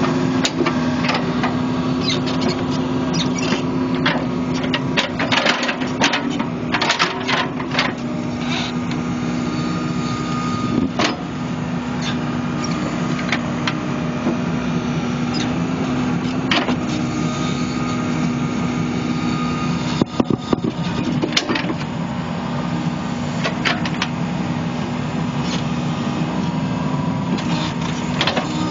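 New Holland Kobelco E80B midi excavator's diesel engine running steadily under digging load, with scattered sharp knocks and scrapes as the bucket cuts into and dumps soil.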